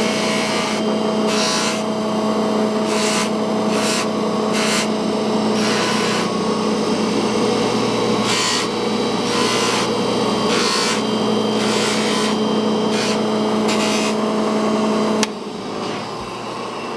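Electric polishing machine running steadily, with repeated rasping bursts each time the small steel piece is pressed against it. The motor switches off about fifteen seconds in.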